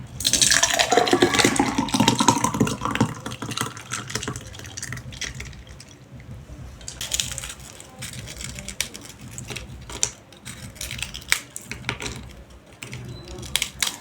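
Liquid being poured into a glass, rising in pitch as the glass fills, for the first three seconds or so. Then scattered light clinks follow.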